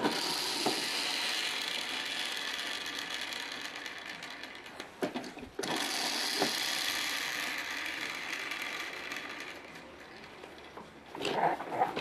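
Plastic mechanism of a Bright Starts Around We Go activity station whirring and rattling in two long runs, each slowly fading, with a short break about five seconds in.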